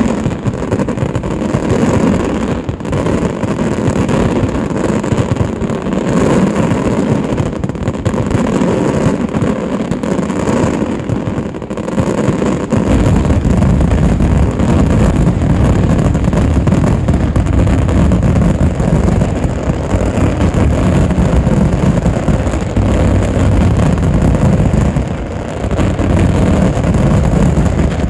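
Aerial fireworks in a dense, unbroken barrage, the shell bursts and crackle coming so fast that they run together into one continuous din. The barrage grows heavier and deeper about halfway through, then eases off right at the end.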